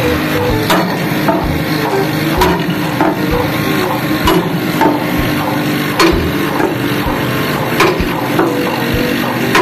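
Sledgehammer striking a flat steel bar on a ship's steel cargo floor, repeated metallic blows roughly every half second to second, over background music.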